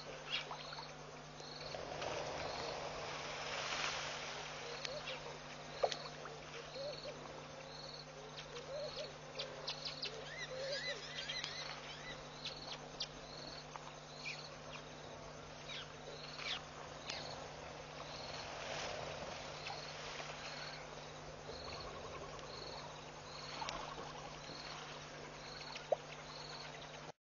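An insect chirps in a steady, even rhythm, about one and a half high chirps a second, over a steady low hum. A few quick warbling calls come about ten to twelve seconds in.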